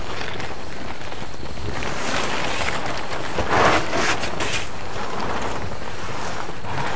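Wind buffeting the microphone in a steady rush, with a couple of brief rustles about two and three and a half seconds in.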